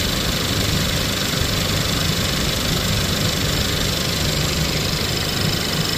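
Ford 2.0 EcoBoost turbocharged four-cylinder engine idling steadily, heard from the open engine bay. It is warm and running to circulate coolant during a flush.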